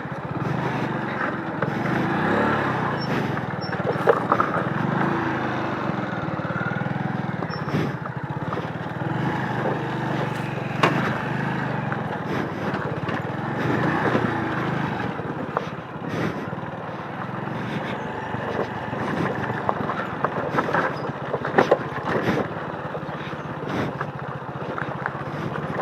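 Small motorcycle engine running steadily while riding a rough dirt trail, its pitch wavering a little, with frequent short knocks and rattles from the bumpy ground.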